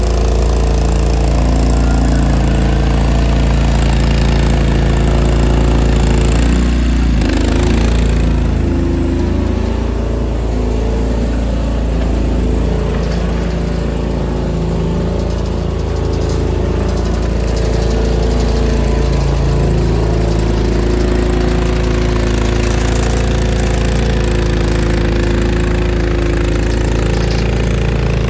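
Mini skid steer's small engine running steadily, its sound shifting briefly about seven seconds in.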